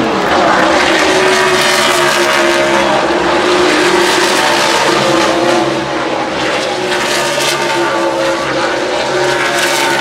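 NASCAR Cup Series stock cars' V8 engines running at race speed, several engines at once in a loud, steady drone whose pitch shifts as the cars pass.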